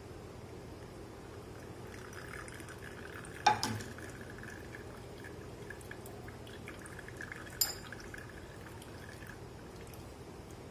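Pistachio syrup trickling through a fine steel mesh strainer into a glass jug, broken by two sharp metal clinks, one about a third of the way in and a softer one about three-quarters through.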